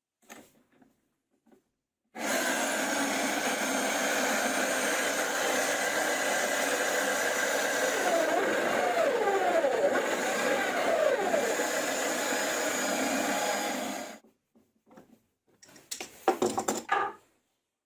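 Electric router motor starting up and running at high speed while its bit cuts into a wooden beam, the pitch dipping and rising as the cutter takes load. It switches off after about twelve seconds, followed by a few light knocks.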